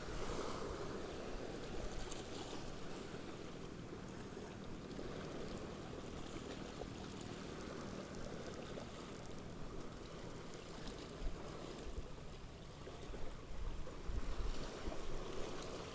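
Seawater washing and lapping, with wind buffeting the microphone.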